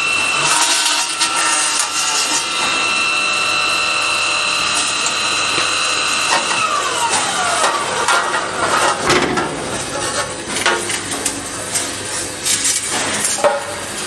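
A circular saw on a roll forming line cutting steel P-beam tube, with a steady high whine. About halfway through the whine stops and a tone falls in pitch. Irregular metal clanks and rattles follow.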